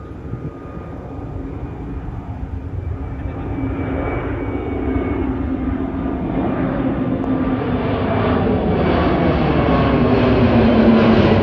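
Airbus A320 jet climbing out after takeoff and passing overhead: steady engine noise with a held hum and whine, growing steadily louder and brighter as it comes closer.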